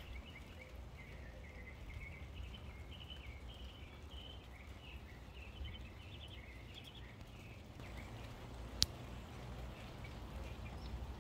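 Steady light rain with small birds chirping repeatedly over it for the first seven seconds or so. A single sharp click comes about nine seconds in.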